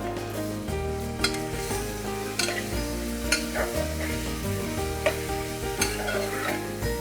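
Minced chicken sizzling and frying in a pressure cooker while a spoon stirs it, with sharp scrapes and knocks against the pot about once a second. Background music plays underneath.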